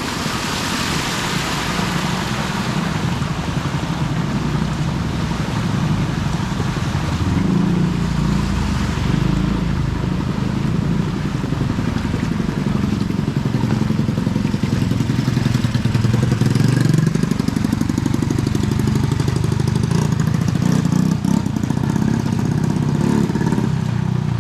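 Motorcycle engine running, its pitch rising and falling as it revs up and eases off.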